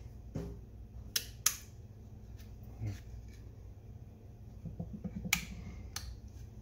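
Several sharp, irregular clicks of small toggle switches being flipped on a hand-held aluminium switch plate, the power and forward/reverse switches of an electric go-kart, along with light handling of the plate.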